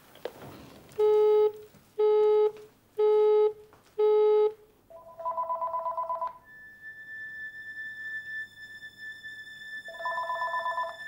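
Four loud identical electronic beeps, about one a second, then a desk telephone's electronic trilling ring, about five seconds in and again near the end, over a thin steady high tone.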